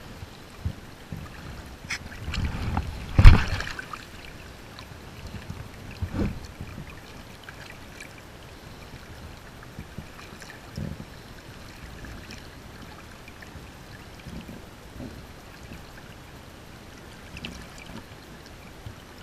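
River water lapping and sloshing close to the microphone in a steady wash. A sharp knock or splash about three seconds in is the loudest moment, with a smaller one about six seconds in.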